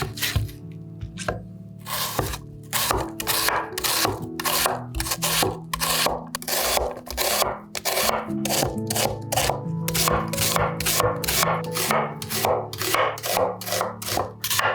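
Quick, regular scraping strokes, about three a second, typical of potato preparation, over steady background music.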